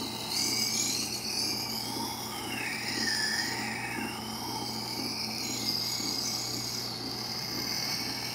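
Rikon 8-inch wet sharpener running with a steady motor hum while a dull kitchen knife held in a jig is ground against the wet grinding wheel, a continuous scraping rasp. A faint tone wavers up and down in the middle.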